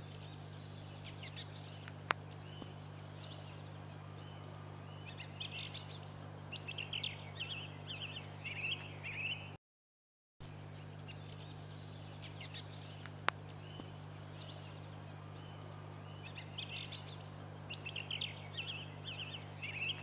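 Song thrush singing, short phrases repeated in quick succession, over a steady low hum. The song cuts out briefly just before halfway, and then the same stretch of song plays again.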